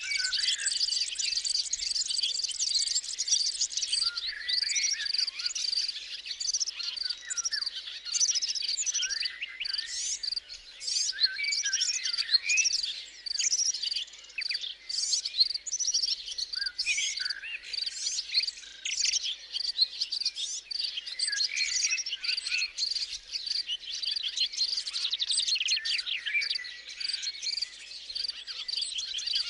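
A chorus of many birds singing and chirping at once, over a steady high pulsing insect trill.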